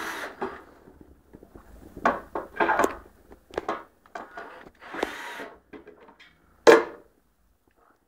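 Knocks, clatter and short scrapes from furniture parts and tools being handled during lamp-table assembly, in irregular bursts with quiet gaps, the loudest a single sharp knock near the end.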